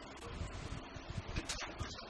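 Handling noises from a monitor being taken apart: a few sharp clicks and knocks of its parts being moved, the loudest about one and a half seconds in.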